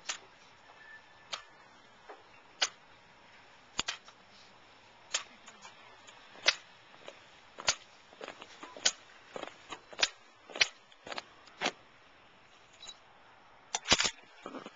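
Sharp slaps and clicks of a rifle drill: hands striking the rifles and heels striking the pavement, about one a second, coming more often in the second half and in a quick cluster near the end.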